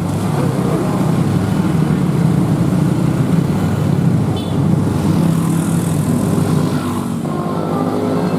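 Tour bus diesel engine running loudly as the bus pulls forward.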